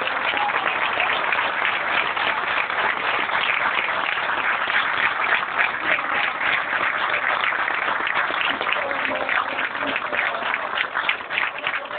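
Crowd applauding, a dense steady clapping that grows more uneven and separate toward the end.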